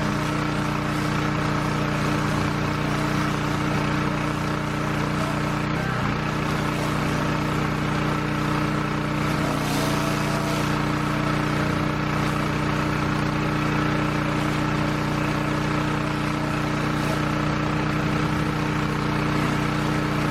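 A small pressure washer engine running steadily under load, with the continuous hiss of high-pressure water spraying from a rotary surface cleaner attachment working across a wooden deck.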